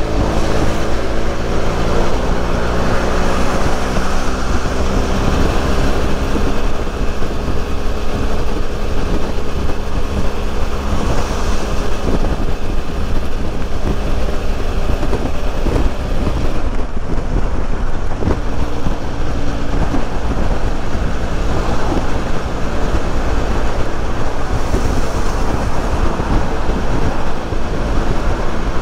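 BMW F800 parallel-twin motorcycle engine running under way, its note rising a little in the first few seconds, under heavy wind rumble on the microphone.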